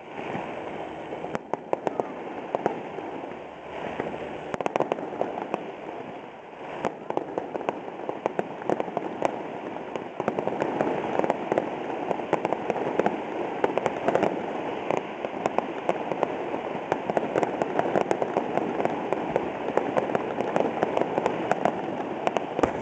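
Fireworks display: aerial shells bursting with a continuous run of sharp pops and crackling over a steady hiss, growing denser and louder from about ten seconds in.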